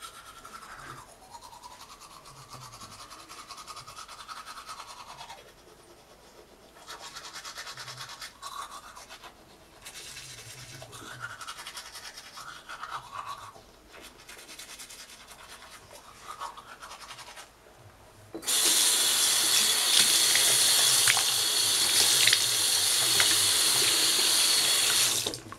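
Manual toothbrush scrubbing teeth in repeated bouts with short pauses. About two-thirds of the way in, a bathroom sink tap is turned on and runs loud and steady while the toothbrush is rinsed under it, then it is shut off abruptly near the end.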